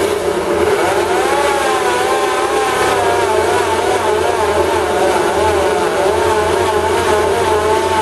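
Electric drill with a worn, noisy gearbox running under load as a step drill bit cuts into stainless steel sheet, a steady drone with a wavering, wobbling squeal over it.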